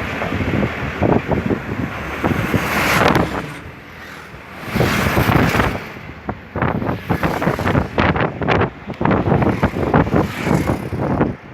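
Gusty wind buffeting the microphone outdoors, coming and going in uneven blasts with a brief lull about four seconds in.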